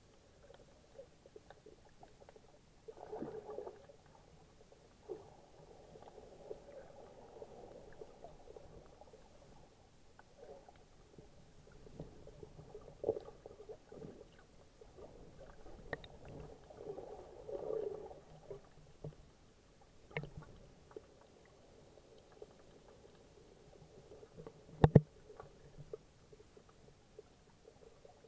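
Muffled underwater sound heard through an SJ4000 action camera's waterproof housing: water surging around the camera in slow swells, with scattered faint clicks and one sharp knock near the end.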